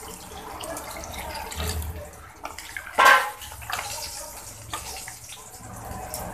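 Water poured into a kadai of spiced bottle-gourd curry, then stirred in with a wooden spatula. A brief louder sound about three seconds in.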